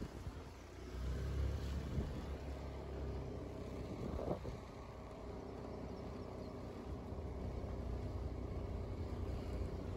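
Steady low rumble of a motor vehicle running, with wind noise on the microphone.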